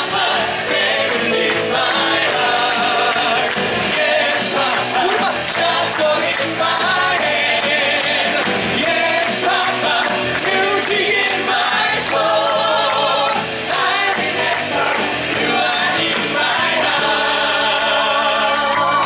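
A live musical-theatre song: several voices singing together over a band with a steady beat.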